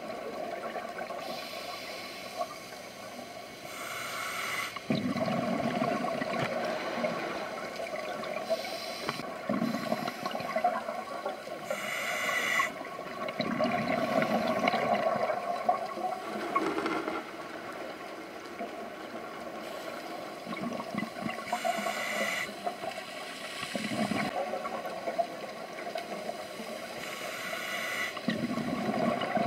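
Scuba diver's breathing underwater: short hissing inhalations through the regulator, each followed by a longer bubbling gush of exhaled air, repeating every several seconds.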